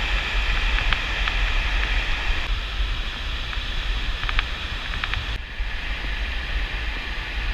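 Rushing water of river rapids, a steady hiss, with wind buffeting the camera microphone as a low rumble. A few faint clicks, and the hiss drops a little about five seconds in.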